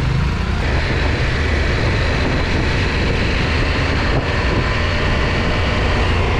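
KTM adventure motorcycle's parallel-twin engine running steadily under way, heard from the bike with heavy wind and road noise.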